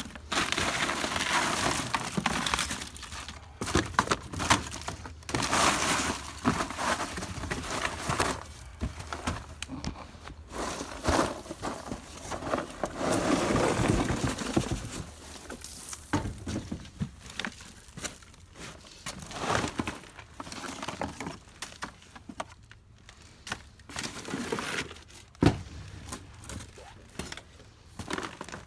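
Rummaging through dumpster debris: irregular rustling, crinkling and clattering knocks as junk is shifted by hand.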